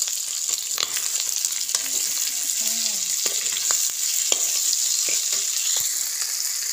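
Food sizzling in hot oil in a wok while a metal spatula stirs and scrapes it, with scattered clicks of the spatula against the pan.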